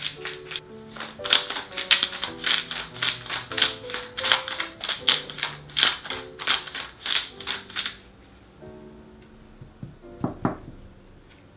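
Pepper mill grinding black pepper in quick rasping strokes, about three a second, stopping about eight seconds in. Background music plays underneath, and there is a brief knock near the end.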